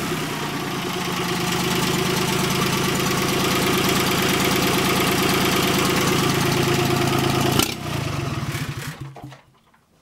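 Yanmar 3T72HA three-cylinder diesel tractor engine running steadily at a low governed speed. About eight seconds in it stops, running down over a second or so to silence.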